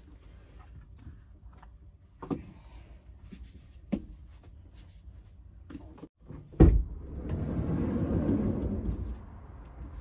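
A camper van's sliding side door unlatching with a loud clunk, then rolling open along its track for about two seconds. A few light knocks and clicks of handling come before it.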